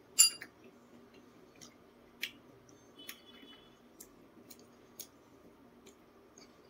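Eating raw jicama: one sharp, crisp crunch of a bite about a quarter second in, the loudest sound, then scattered faint crunches and mouth clicks from chewing, over a faint steady hum.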